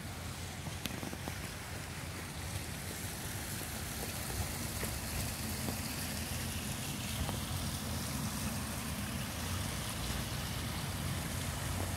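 Steady outdoor background noise: an even hiss over a low rumble, growing slightly louder, with no distinct events.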